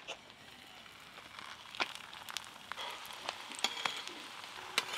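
Lachha paratha frying in a shallow layer of oil and ghee on a flat tawa: a faint sizzle that thickens about two seconds in, with scattered sharp pops and ticks.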